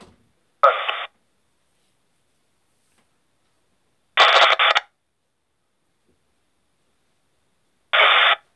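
Uniden scanner's speaker playing back brief recorded narrowband FM radio transmissions: three short bursts of radio sound, each under a second long, about four seconds apart.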